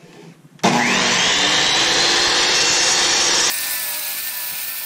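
Table saw switched on, its motor spinning up with a rising whine, then running loud as it rips a pine board. About three and a half seconds in the sound drops abruptly to a quieter, steadier run.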